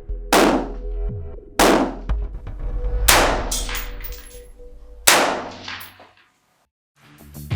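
Intro sound design: four heavy metallic impact hits, each ringing out for about a second, over a steady low drone. A second of silence follows near the end.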